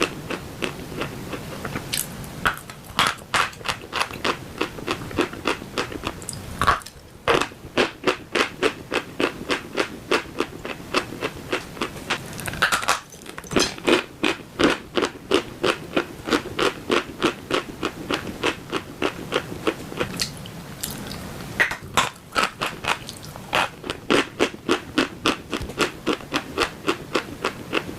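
A person chewing dry chalk: crisp, regular crunches about three a second, pausing briefly a couple of times before chewing on.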